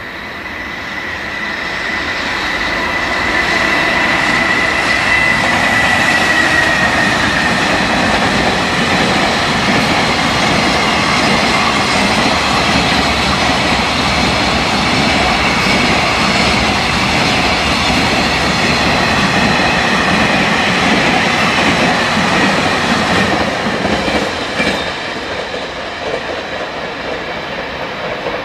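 A JR Freight container train hauled by an EF210 electric locomotive passing close by, a loud steady rush and rumble of wheels on rail. A high whine sounds over the first several seconds, dipping slightly in pitch. The noise swells over the first few seconds and eases off somewhat near the end.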